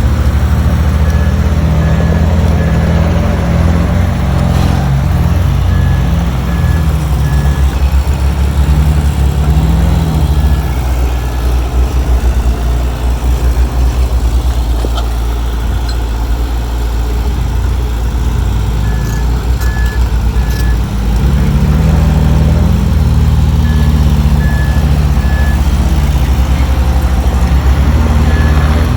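Heavy construction machinery's diesel engine running loudly and steadily, easing a little partway through, with a reversing alarm beeping in sets of three short beeps every few seconds.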